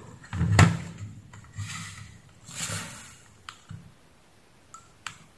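Handling noise of plastic equipment on a tabletop: a loud knock and rustle about half a second in, softer rustling, then a few sharp clicks as the buttons of a digital multimeter are pressed.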